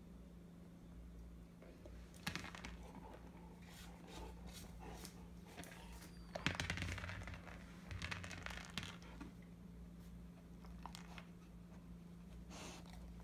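American Akita puppy chewing and gnawing a translucent plastic ball, her teeth clicking and scraping on the plastic in irregular spells, loudest about six and a half seconds in.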